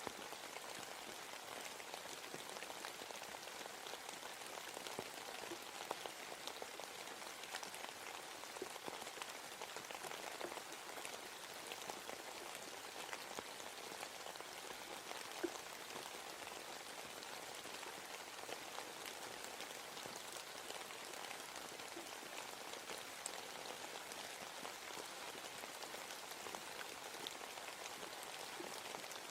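Steady rain falling in a forest, a soft even patter with many scattered drops on leaves and one sharper drip about halfway through.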